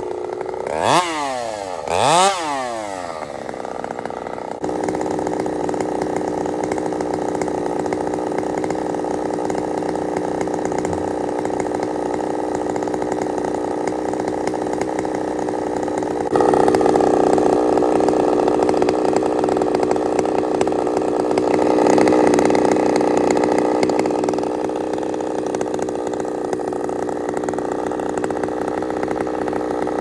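Two-stroke chainsaw revved hard twice, each rev rising and falling in pitch, then running steadily at high throttle, a step louder from a little past halfway.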